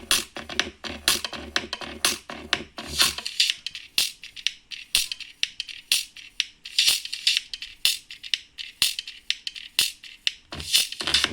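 Music with a quick beat of sharp percussive hits. The bass drops out about three seconds in and comes back near the end.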